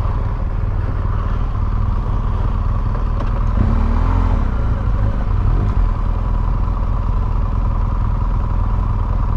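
Motorcycle engines idling steadily at a standstill, the nearer one a BMW GS boxer twin.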